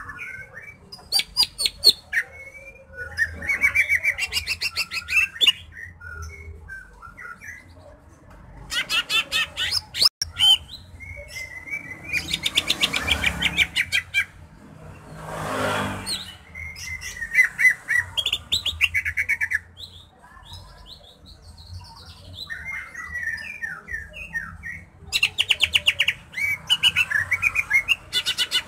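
Male green leafbird (cucak hijau) singing in repeated bouts of fast rattling trills mixed with warbled, whistled phrases, each bout lasting a second or a few seconds with short pauses between. A brief rushing hiss comes about halfway through.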